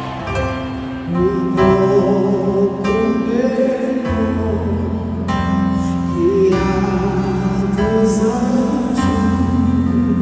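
Christian worship song: a singer holds long, wavering notes over sustained instrumental chords.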